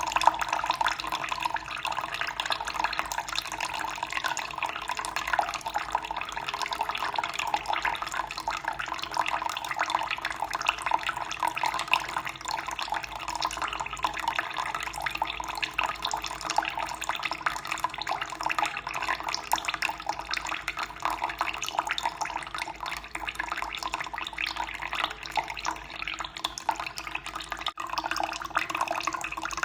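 Water running and splashing steadily in a continuous trickling rush, with a split-second dropout near the end.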